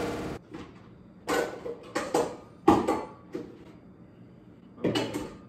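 Kitchen cupboard doors and dishes knocking and clattering in several short separate bursts, as of someone rummaging through the cabinets for a mixing bowl.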